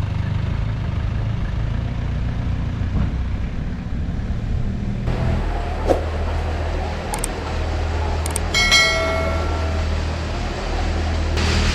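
An engine running steadily with a low hum; its sound shifts about five seconds in. A short, sharp pitched tone sounds once about two-thirds of the way through.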